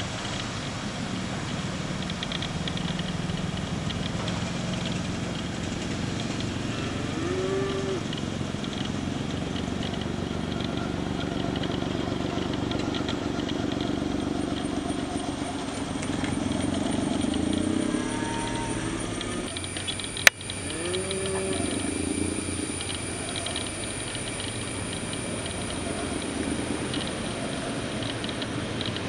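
Boeing 777 jet engines running with a steady rumble as the airliner rolls along the runway after landing. A few short calls that rise and fall in pitch sound over it, about 7, 17 and 21 seconds in, and there is one sharp click about 20 seconds in.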